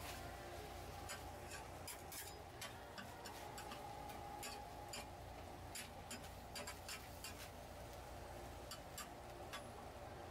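Metal spatulas clicking and scraping against a flat griddle while stir-frying blood sausage and vegetables: irregular sharp clicks over a steady low hum.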